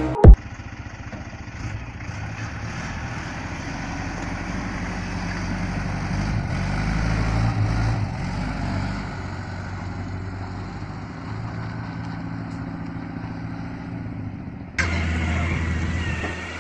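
A sharp bang right at the start, then an off-road flatbed truck's engine running steadily, getting louder for a couple of seconds in the middle. Near the end it switches abruptly to a different vehicle's steady running.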